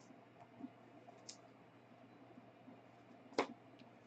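Trading cards being handled: faint soft clicks and one sharp click near the end, over a faint steady low hum.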